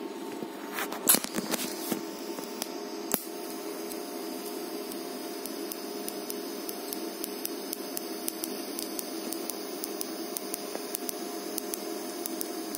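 DC TIG welding arc: a few sharp crackles about a second in as the arc strikes, then a steady hiss and buzz with faint crackling while the bead is run.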